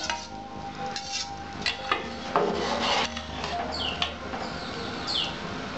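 Steel spoon scraping vegetables out of a steel bowl and stirring them into a metal pot of boiling khichuri: rasping scrapes of metal on metal with a few knocks.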